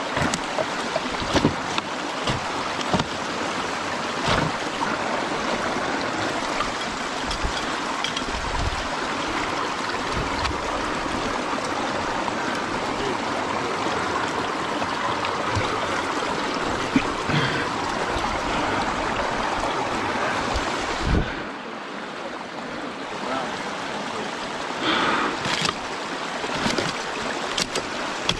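Water rushing through a breach being pulled open in a beaver dam, with scattered knocks and snaps as sticks are wrenched out and a metal bar is worked into the debris. The rush drops noticeably about three quarters of the way through.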